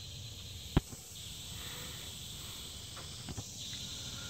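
One sharp metallic click about a second in and a couple of faint ticks near the end, from brake parts being handled, over a steady high outdoor hiss.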